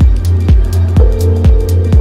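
Electronic background music with a steady kick-drum beat, about two beats a second, and quicker high ticks over it.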